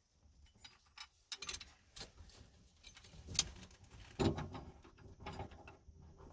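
Scattered clicks, knocks and light rattles of a seatbelt retractor's parts being handled and fitted back together, with the sharpest click about three and a half seconds in.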